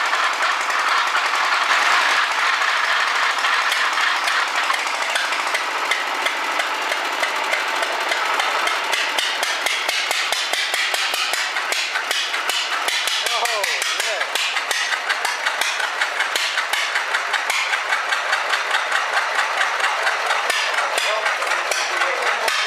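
Old engine running with a rough, noisy clatter that settles after about eight seconds into a fast, even beat of sharp knocks.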